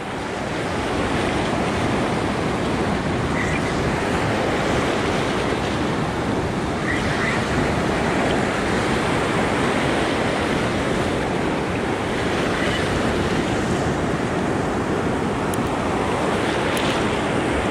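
Breaking ocean surf and foam washing around the shallows in a steady rush, with wind buffeting the microphone.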